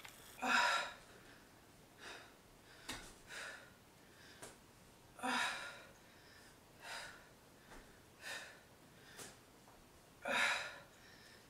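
A woman's heavy breathing while doing dumbbell side plank rows: sharp, forceful exhales and quick breaths. The three loudest exhales come about five seconds apart, near the start, midway and near the end, with smaller breaths between them.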